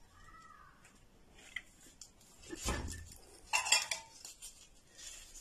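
A glass jar packed with salted lemons set down on a tiled countertop with a dull knock, followed by sharp clinks of a knife and utensils being handled. A brief faint squeak comes near the start.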